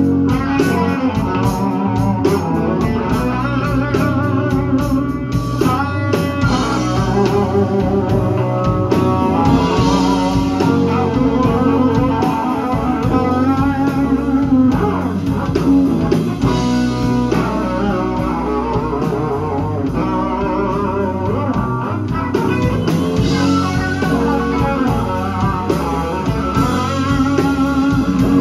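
Live blues band playing a slow blues: a Les Paul-style electric guitar leads with bent notes and wide vibrato, over bass and drums.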